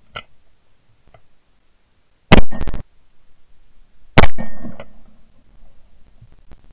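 Two shotgun shots fired at clay targets, about two seconds apart, each a sudden blast recorded at the gun itself so loud that it clips.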